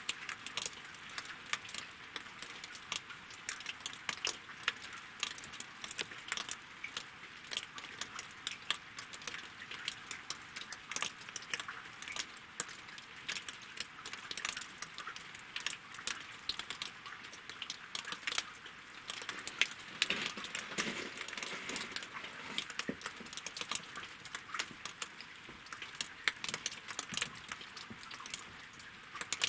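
Rain falling on a lake and on wooden logs: a dense, irregular stream of separate drops tapping over a steady soft hiss of rain, swelling briefly about twenty seconds in.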